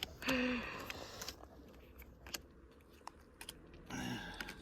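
Faint scattered clicks and taps, with a brief hummed voice sound near the start and a short voice sound again near the end.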